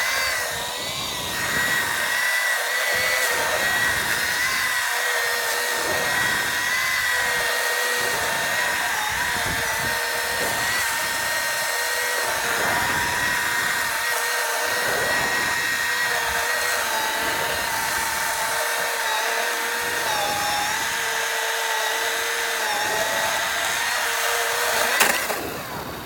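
Milwaukee battery-powered electric chainsaw running at full speed with a steady high whine, its pitch sagging slightly now and then. It shuts off with a click near the end.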